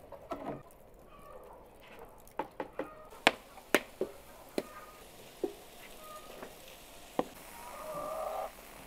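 Scattered sharp knocks and clacks at irregular intervals, with a brief pitched call near the end.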